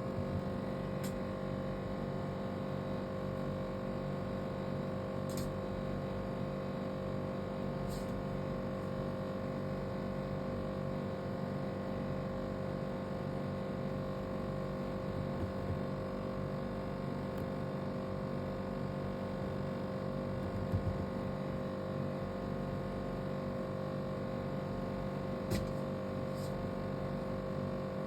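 A steady hum, with a few faint high-pitched ticks scattered through it.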